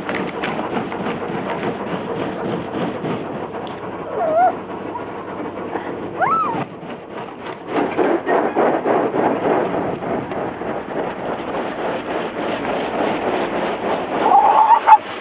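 Automatic car-wash water spray and brushes rushing and slapping against the car, heard from inside the cabin, with a small dog (pug) giving a few short whines that bend up and down in pitch, loudest near the end: the dog is upset by the car wash.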